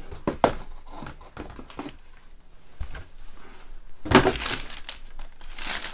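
Shoebox lid and the tissue paper inside being handled: scattered rustles and crinkles, then a louder burst of crinkling about four seconds in as the tissue paper wrapping the sneakers is pulled open.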